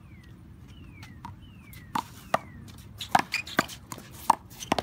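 One-wall handball rally: a small rubber ball smacked by gloved hands, slapping the concrete wall and bouncing on the court, in a quick run of sharp smacks from about two seconds in. Before that, four short falling whistles.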